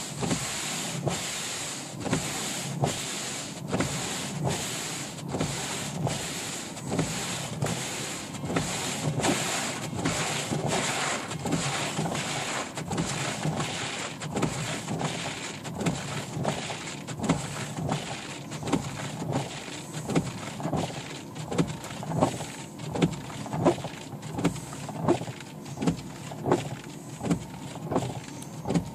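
Windshield wipers on a 1995 Dodge Intrepid sweeping back and forth across snow-covered glass, scraping at each pass a little more than once a second, over a steady rushing noise from the running car.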